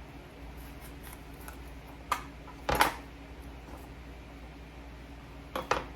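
A few separate clinks and knocks of kitchen utensils and dishes being handled on a counter. The loudest comes a little before halfway, and a quick pair comes near the end.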